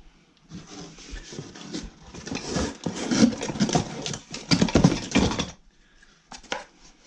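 Rustling and clattering as packaging and heavy parts are handled in a cardboard box: irregular knocks and rustles for about five seconds, then a couple of short knocks near the end.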